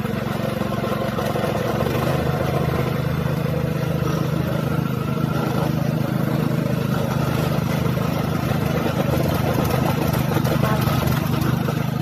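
Two small petrol-engined vibratory plate compactors running steadily as they tamp crushed-rock fill into road potholes. The engine note grows slightly louder about two seconds in.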